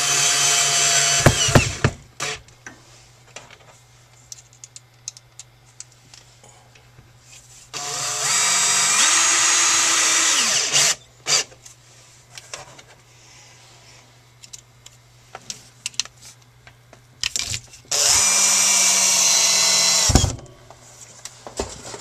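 Cordless drill driving screws up into the plywood underside of a desk, in three runs of two to three seconds each. The first run ends about two seconds in, the second comes around eight seconds in, and the third near eighteen seconds in. Between the runs there are light clicks and knocks of handling.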